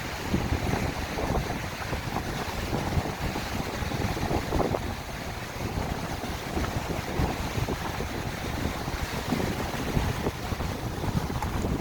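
Strong wind buffeting the microphone with a heavy, gusty rumble, over the wash of waves breaking on the shore.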